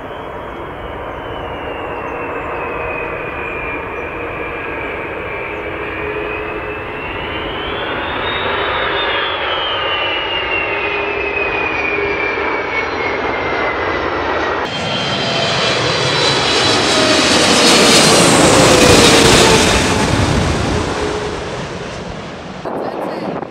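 Airbus A300 jet engines whining on landing approach, the high whine dipping, then rising briefly about eight seconds in before easing off again. After a cut about fifteen seconds in, a twin-engine Boeing 777 passes close, growing loud and then fading with a falling pitch.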